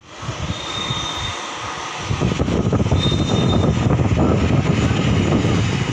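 Jet airliner's engines running on the runway: a steady, loud rumble that grows louder about two seconds in, with a thin high whine coming and going.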